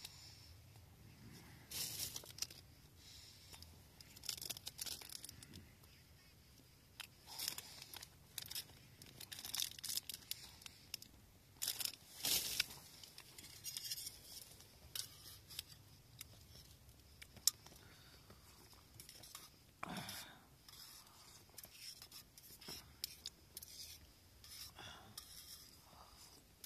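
Irregular rustling and crinkling at close range, short crackly scrapes and rustles coming every second or so, as things are handled.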